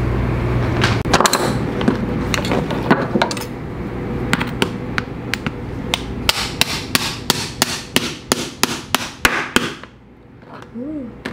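A series of sharp knocks, sparse at first and then a quick steady run of about four a second, stopping shortly before the end.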